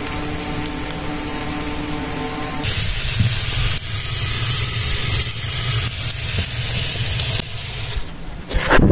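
Minced-meat kebab sizzling in a foil tray on hot coals inside a clay tandoor: a steady hiss over a low rumble, with a faint hum during the first few seconds. The hiss becomes brighter and louder about three seconds in.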